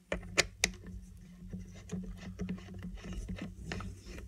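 Small stainless-steel vape tank parts being handled and screwed together: a few sharp clicks in the first second, then light scraping and ticking.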